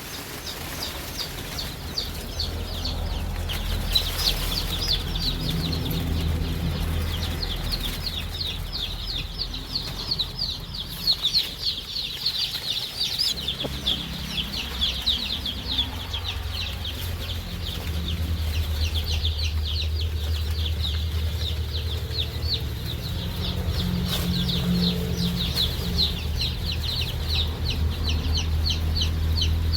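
A flock of chicks peeping nonstop in a dense chorus of short, high chirps, over a low steady hum.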